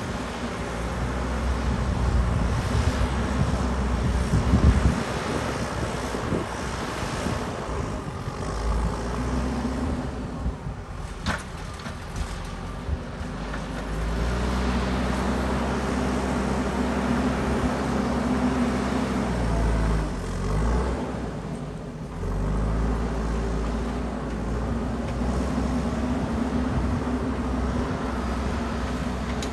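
Diesel engine of a JCB backhoe loader working, its note rising and falling with the load and easing briefly about twenty seconds in. A single sharp knock comes about eleven seconds in.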